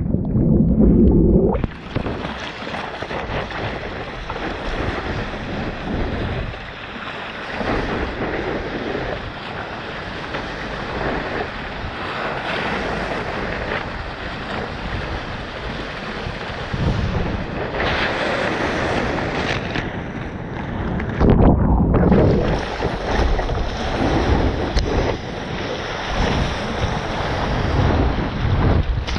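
Wind buffeting the microphone over the rush of sea water, rising and falling unevenly, with brief drops about a second in and again about three quarters of the way through.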